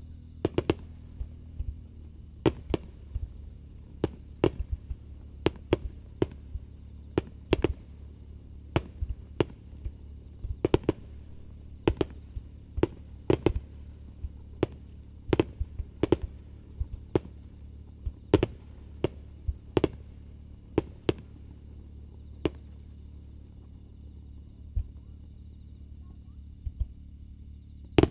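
Aerial firework shells bursting in an irregular string of sharp bangs, about two a second, heard from roughly 800 m away. The bangs thin out to only a couple in the last several seconds.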